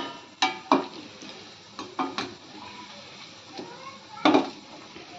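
Bondas deep-frying in hot oil in a stainless steel kadai with a steady sizzle, while a perforated metal skimmer stirs them, clinking against the pan several times, loudest about four seconds in.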